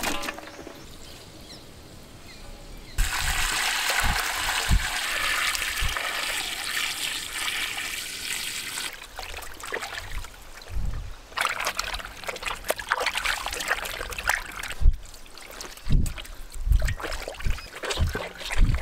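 Water trickling and splashing in a basin as goat tripe and intestines are washed and squeezed by hand, starting about three seconds in, with soft wet knocks from the handling near the end.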